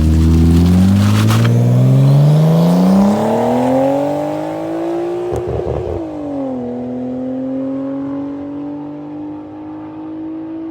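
Nissan Skyline's turbocharged straight-six with an aftermarket exhaust, pulling under acceleration. The engine note climbs steadily for about five seconds, drops sharply at a gear change about six seconds in, then pulls again in the next gear.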